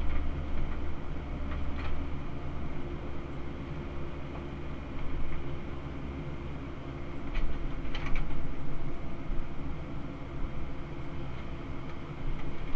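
Cat 308 CR excavator's diesel engine running steadily while the hydraulics work the boom and bucket, heard from inside the cab. A few brief knocks come through, about two seconds in and again around seven to eight seconds in.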